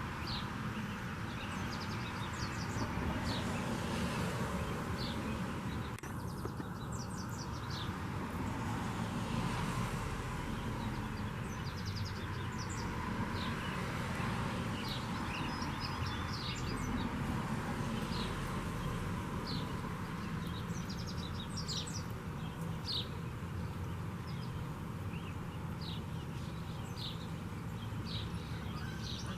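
Small birds chirping and calling in short, frequent notes over a steady low background rumble.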